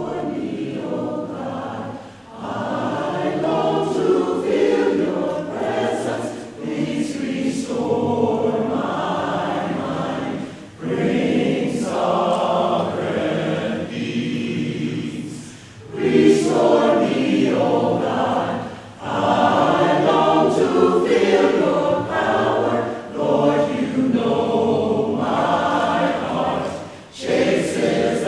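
A mixed choir singing an unaccompanied choral piece in sustained phrases, with brief pauses for breath between phrases.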